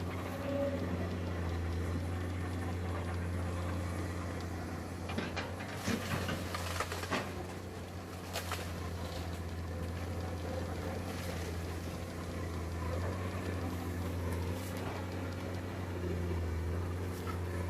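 Heavy diesel engine of a Komatsu PC200 excavator running steadily under work, with a handful of sharp knocks and clanks between about five and nine seconds in.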